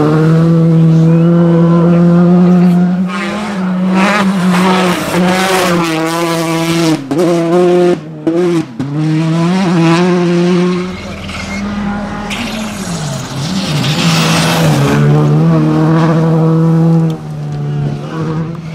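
Skoda Fabia R5 rally cars running hard on gravel stages, their turbocharged four-cylinder engines held at high revs. Sharp breaks in the sound come with the gearshifts about seven to nine seconds in. The sound falls away near the middle, and another car's engine comes in loud from about fifteen seconds.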